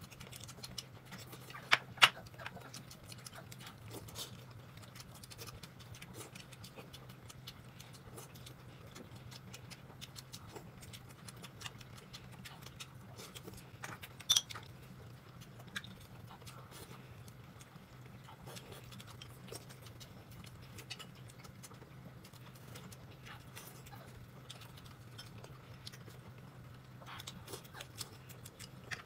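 Quiet eating at a table: scattered clicks and taps of eating, with two sharp clicks about two seconds in and another about fourteen seconds in, over a faint steady hum.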